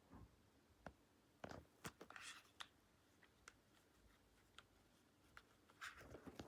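Near silence: room tone with a few faint scattered clicks and brief rustles.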